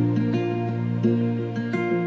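Soft instrumental background music: plucked guitar notes over a deep held bass note that came in just before.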